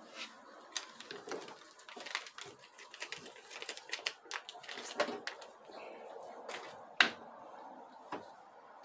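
Small irregular clicks and taps of plastic and metal as new solenoids are pushed and twisted into a ZF6HP28 transmission valve body, with one sharper click about seven seconds in.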